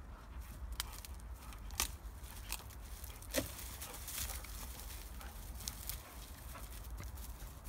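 Dry grass and twigs crackling and snapping irregularly as a dog roots and pulls in dead brush and tramples matted dry grass, over a steady low rumble.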